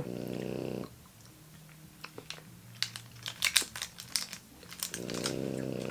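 A pet dog snoring: two long snores about four seconds apart. Between them come small crisp clicks and crinkles as a hard sweet and its plastic wrapper are handled.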